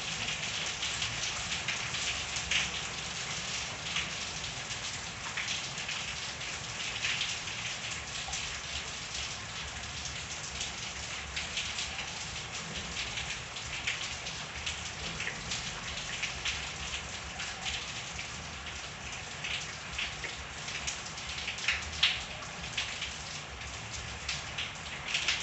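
Steady rain falling in a backyard, a continuous patter of drops with a few louder individual drips standing out.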